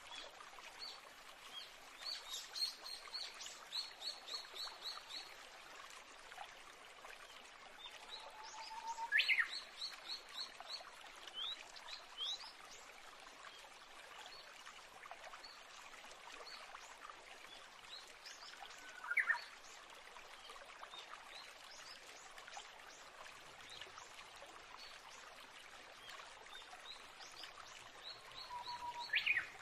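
Birds chirping and trilling over a steady hiss, with quick runs of high repeated notes and a loud rising chirp about every ten seconds.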